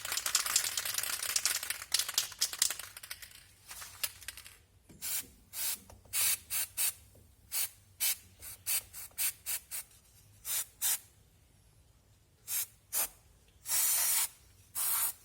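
Aerosol lubricant spray can spraying brake parts: a long hissing spray, then a series of short squirts, the longest near the end.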